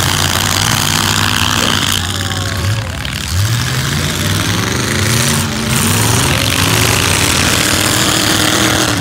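Engines of demolition-derby pickup trucks running loud, revving up and down with rising pitch, about three seconds in and again from about six seconds.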